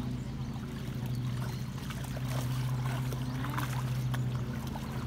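Puppies wading through a shallow creek, their legs splashing in the water, over a steady low hum.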